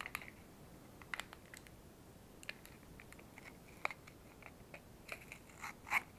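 Packaging of Oral-B replacement toothbrush heads being handled and pulled apart: scattered small clicks and crackles, with a run of crinkling near the end that holds the loudest crackle.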